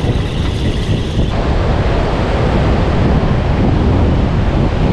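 Strong wind buffeting the microphone over the wash of surf breaking on a beach.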